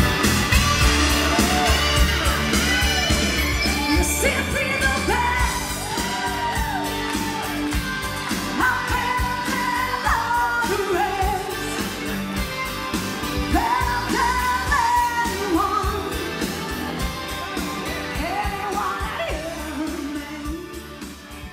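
Background pop song with a singer's voice over a beat. The heavy bass drops out about five seconds in, and the music fades out near the end.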